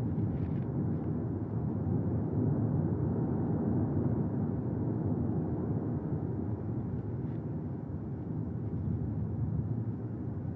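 Cumbre Vieja volcano erupting in Strombolian fashion, a steady low rumble from its lava-fountaining main vent.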